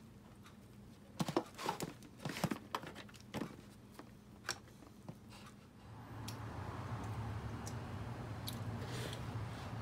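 Fingers tearing apart smoked skipjack tuna (cakalang fufu) in an aluminium foil tray: a run of small crackles and crinkles of dry fish flakes and foil between about one and five seconds in. A steady low hum sets in about six seconds in.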